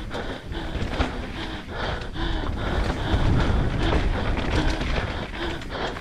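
Enduro motorcycle engine running at low revs with short throttle blips, over wind buffeting the microphone and sharp knocks as the bike rides over rocks.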